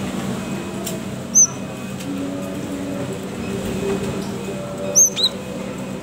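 Cinereous tit giving short, high squeaky chirps: one about a second and a half in and a quick pair near five seconds. A steady low hum runs underneath.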